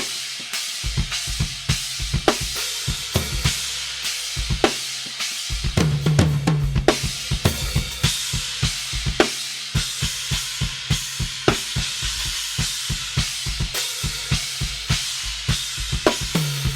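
Drum kit played in a groove with fills: quick kick and snare hits under a steady shimmering wash of crash cymbal, here an Istanbul Mehmet X-Ray crash.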